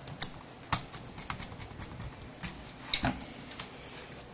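Irregular sharp plastic clicks and taps of laptop parts being handled, with the loudest cluster of knocks about three seconds in.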